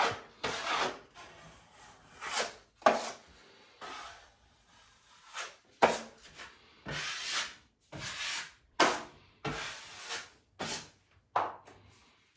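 Drywall knife scraping joint compound across repaired drywall, about a dozen separate swipes at an uneven pace, skimming the patches flat before texturing.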